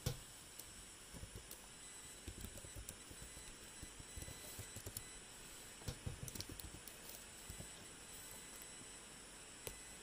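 Faint steady hiss of a radio tuned to a weak or missing signal, with thin high whines and scattered soft low crackles and bumps that are thickest through the middle.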